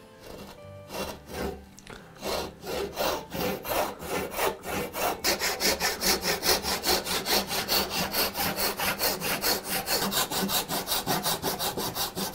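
Hand backsaw cutting a slot into the end of a hardwood bevel-gauge stock, the kerf for the brass blade. A few light starting strokes give way, about two seconds in, to fast, even back-and-forth strokes, several a second.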